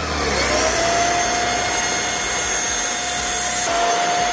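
Greenote GSC60 cordless stick vacuum running with its motorized bed brush head on a duvet: a steady motor whine with a thin high whistle. The whine rises in pitch and levels off within the first half second, then shifts slightly near the end.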